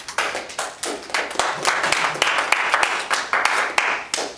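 Applause from a small group of people: a dense run of overlapping hand claps that stops abruptly near the end.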